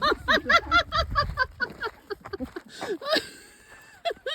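Dogs yipping excitedly: a fast string of short, high, rising-and-falling yelps for the first second and a half, then sparser yelps and one sharper cry about three seconds in.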